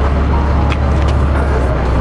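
Engine of the crane holding a granite slab on slings, running steadily with a low, even drone.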